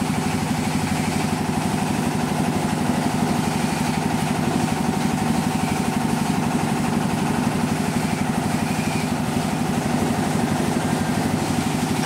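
Small engine running steadily with a fast, even pulse, driving a pulley-driven grinding mill that grinds fried peanuts and chillies.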